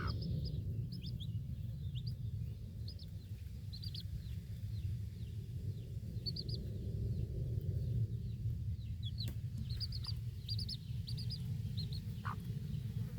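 Baby chicks peeping in quick runs of short high chirps that come and go every second or two, over a steady low outdoor rumble.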